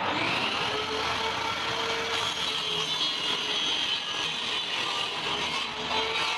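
Shop-built table saw running and crosscutting a thin wooden board on a sliding sled: a steady, loud saw noise with a high whine.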